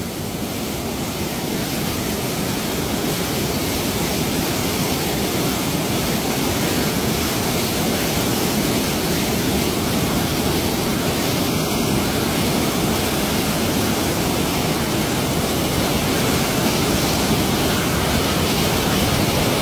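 Waterfall's whitewater pouring down a steep rocky slope: a steady, very loud rush of falling water that does not let up.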